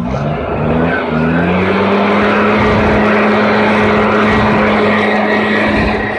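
Gas leaf blower engine throttled up from idle in a few quick steps, then held at a steady high speed with a rush of air, blowing grass clippings off a concrete sidewalk.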